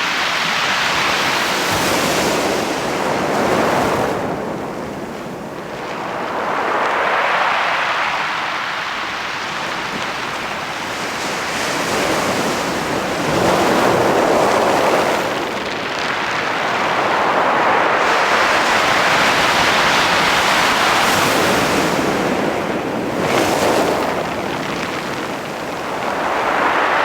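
Sea waves washing over a beach of smooth round pebbles, the pebbles rolling and clattering in the surf. The sound swells and fades in slow surges every few seconds.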